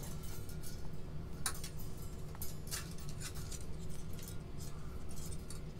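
Scattered light clicks and taps as a strand of wire fairy lights is handled and wound around the posts and tiers of a tiered serving tray. A steady low hum sits underneath.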